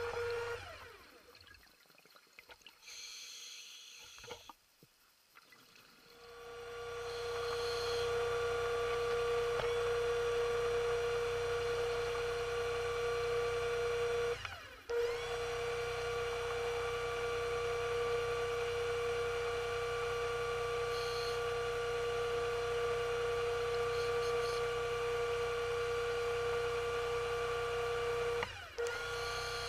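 Electric diver propulsion vehicle (underwater scooter) motor running underwater with a steady whine. It comes up to full level about six seconds in after a quieter stretch, and cuts out briefly about halfway through and again near the end.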